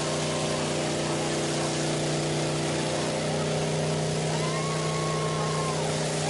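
An engine idling steadily, a constant low hum that does not change in pitch.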